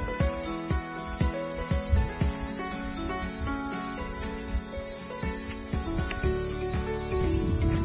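A chorus of cicadas buzzing: a steady, shrill high-pitched drone with a fine rapid pulse. Low thumps and short steady tones sound underneath.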